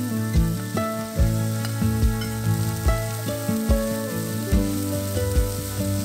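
Soya chunks sizzling as they fry in oil in a non-stick pan, with a silicone spatula stirring them through the spice powder, over background music.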